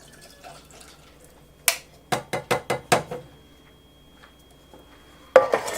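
Hand-held swing-away can opener on a can of peas: a sharp click as it bites, then a quick run of about six clicks as the key is turned. A loud metal clank comes near the end.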